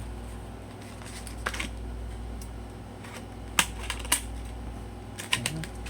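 Scissors cutting into plastic packaging: scattered sharp snips and clicks, with a quick cluster near the end, over a steady low hum.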